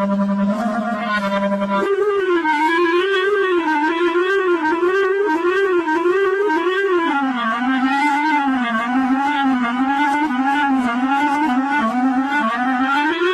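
A sustained reedy musical tone with many overtones. It holds one low pitch for about two seconds, then jumps higher and wavers up and down in pitch. Near the end it glides steeply upward.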